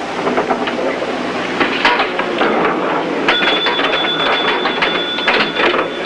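Pinball machine in play: a dense run of mechanical clicks and clacks, with a steady high tone that switches on about halfway through and cuts off about two seconds later.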